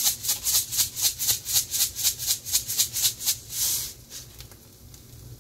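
Salt being shaken out of a salt shaker in quick, even strokes, about six shakes a second, stopping a little before four seconds in.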